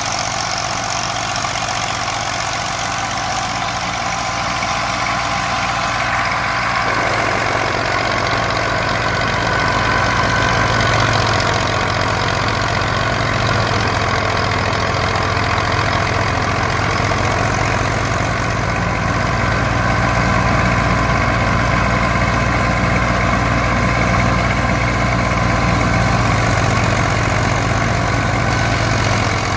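Massey Ferguson 240 tractor's three-cylinder diesel engine running steadily under load while it drives a grain thresher, the thresher running along with it. The sound fills out and grows a little louder about seven seconds in.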